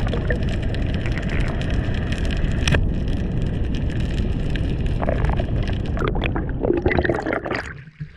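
Underwater noise picked up by a spearfisher's camera: a loud, steady rushing dotted with crackling clicks. It falls away abruptly near the end as the camera breaks the surface.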